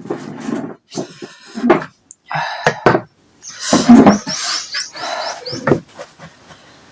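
Close-miked eating sounds: wet chewing and slurping of pancit canton noodles and eggs, in irregular loud bursts with short pauses.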